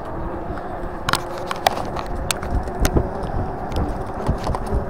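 Riding noise from a 1000 W electric bike on a tarmac path: a steady rumble of wind and tyres with a faint steady hum, and scattered sharp rattling clicks from the bike over the surface.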